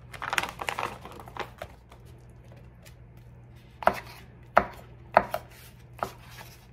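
A plastic pouch of cooked chicken strips crinkling as it is emptied onto a paper plate, then a kitchen knife dicing cooked chicken breast on a paper plate: about six sharp, separate knife taps against the plate and the countertop beneath, spread over the last three seconds.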